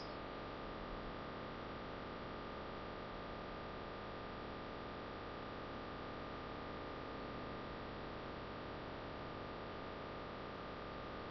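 Steady hiss of a recording's background noise with a thin constant tone running through it. No other sound.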